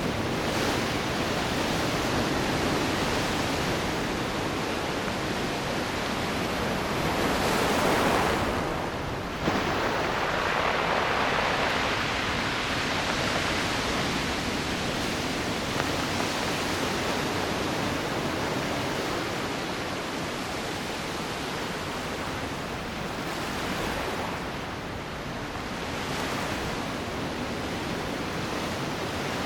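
Ocean surf washing onto a rocky shore: a continuous rush of water that swells and eases as the waves come in, one wave building about eight seconds in and breaking off sharply a second later.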